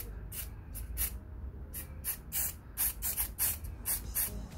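Aerosol spray paint cans, gloss brown and gloss black, sprayed with the beams crossed in about a dozen short hissing bursts, coming quicker in the second half.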